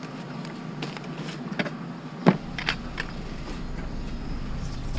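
A vehicle engine running steadily, with a handful of sharp clicks and knocks in the first three seconds.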